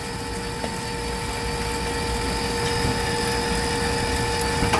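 AirDog II-4G DF-165 fuel lift pump, a brushed DC electric pump, running with a steady hum and a constant whine in two tones over a low rumble. It is pretty quiet, running smoothly with about 6,000 miles on its motor tower.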